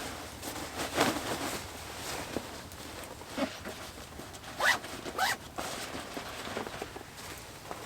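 A zip being pulled in short strokes, with two quick rising zips close together about five seconds in, among light rustling and handling noises.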